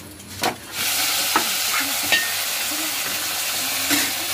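Small puthi fish frying in hot oil in a wok: a loud, steady sizzle that starts abruptly about a second in, with a few sharp taps of a metal spatula against the pan.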